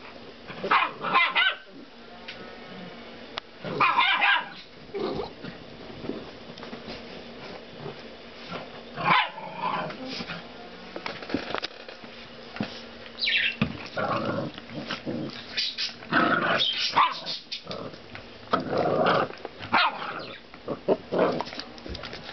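Puppies play-fighting, barking and yapping in short, irregular bursts with brief pauses between.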